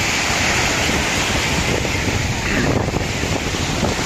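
Sea waves washing on the shore in a steady rush, with wind buffeting the microphone.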